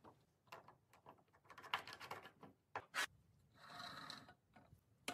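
Faint small clicks and taps of glass spice jars and their lids being handled and set into a spice carousel, with a brief scrape about four seconds in.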